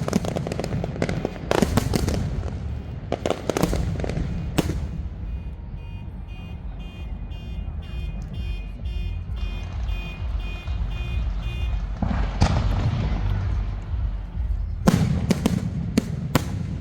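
Fireworks display: clusters of sharp cracks and booms from aerial shells and firecrackers over the first few seconds, again about twelve seconds in and near the end, with a continuous low rumble between them. In the lull in the middle, a high electronic beep pulses about twice a second for several seconds.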